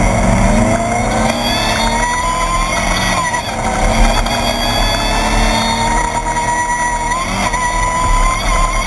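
Desert race buggy's air-cooled 1600cc VW engine running hard, its pitch rising and falling with the throttle and gears.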